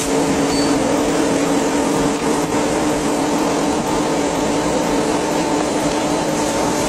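Steady mechanical drone of a plastic blow-moulding machine running, with a constant hum in it.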